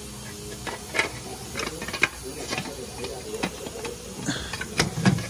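Plastic underbody cover being worked loose by hand: irregular clicks, scrapes and knocks of plastic against the car's underside, with a heavier thump about five seconds in.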